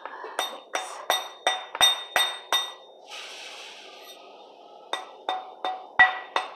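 Light metallic taps with a short bright ring, about three a second, from a hand engraving tool being struck into brass. The tapping stops for about two seconds in the middle, with a soft hiss, then resumes.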